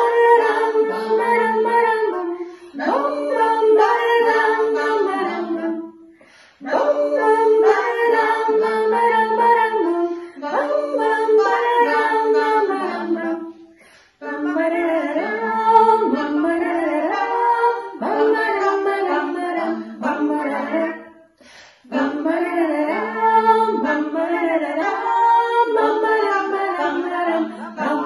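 Women singing a children's song together, in phrases of a few seconds with short breaths between them.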